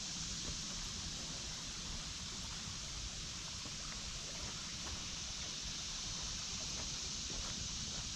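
A creek running steadily: an even, unbroken rush of water.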